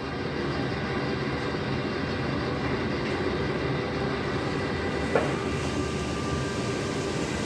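A washing machine for 20-litre PET water jars running steadily, with a dense mechanical rumble and steady motor hum. A single sharp clack comes about five seconds in.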